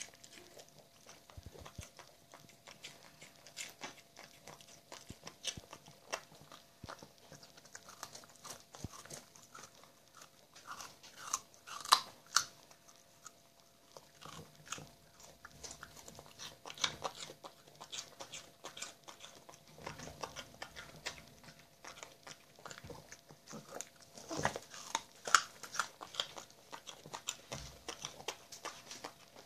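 A Cavalier King Charles Spaniel gnawing and crunching a raw carrot held between its paws: irregular crisp bites and chewing. Louder bursts of crunching come about twelve seconds in and again around twenty-five seconds.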